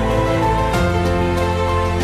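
Background music: sustained notes held in chords, moving to a new chord a little before a second in.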